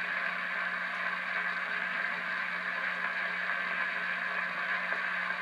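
Steady hiss of old radio static, strongest in the upper mid range, with a low steady hum beneath it.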